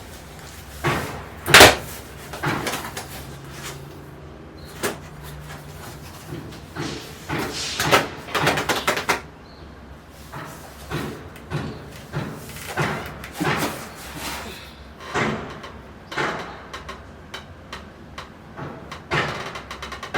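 Irregular knocks, clacks and rustles of containers and food items being handled and set down on the shelves of a refrigerator, with the loudest knock about one and a half seconds in.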